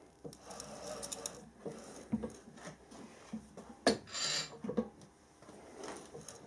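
Twist drill in a mini mill scraping and rubbing unevenly against the edge of an existing hole in a metal bar, with a sharp click and a short hiss about four seconds in. The drill is off-centre and bending as it picks up the hole.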